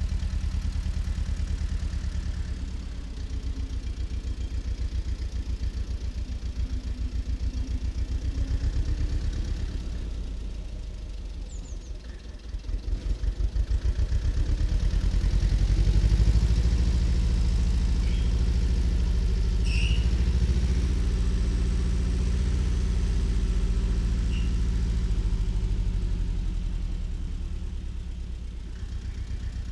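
Tractor engine running steadily as it pulls a field roller over newly sown grass, with an even low firing pulse. It drops away about twelve seconds in, then comes back louder and eases off near the end.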